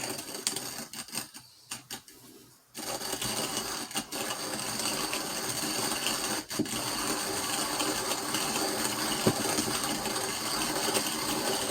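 Hand-cranked burr coffee grinder grinding coffee beans: a steady crunching, rattling grind that starts about three seconds in, after a few light clicks.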